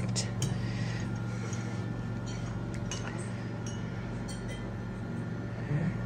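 Serving spoons clinking against small ceramic bowls and a plate, a few scattered light clinks over a steady low hum.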